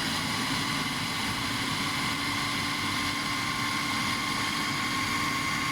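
A steady machine-like hum with faint whining tones, unchanging throughout.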